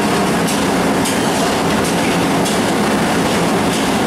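Steady, loud roar of a commercial kitchen around a large aluminium cooking pot, with a few faint light ticks from a long ladle stirring in the pot.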